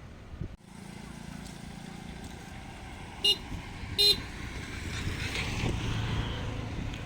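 Vehicle horn tooting twice, two short blasts under a second apart, over steady vehicle running noise.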